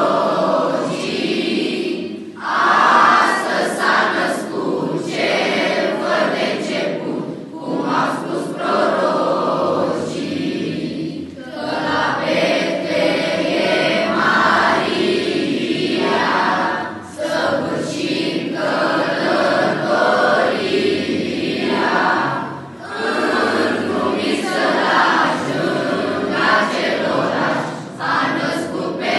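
A school choir of children and teenagers singing together, a winter-holiday carol in Romanian, in sung phrases of a few seconds with short breaths between them.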